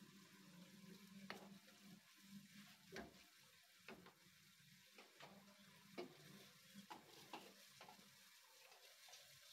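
Faint stirring of minced meat in a non-stick wok with a wooden spatula: a few scattered light taps and scrapes of wood on the pan, over a faint sizzle of the frying keema.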